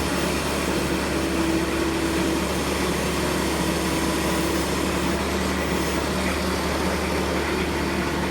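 Bobcat T190 compact track loader's diesel engine running steadily.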